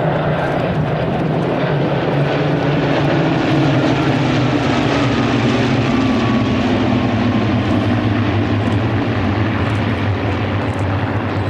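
Rolls-Royce Merlin V12 engines of sixteen Supermarine Spitfires flying over in formation: a loud, steady roar whose pitch falls slowly as the formation passes.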